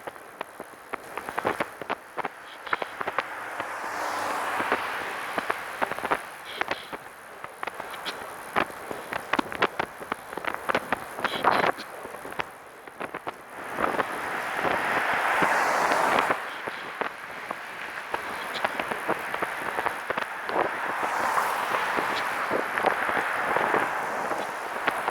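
Catrike 700 recumbent trike being ridden: irregular rattling clicks over a hiss of wind and tyres that swells and fades.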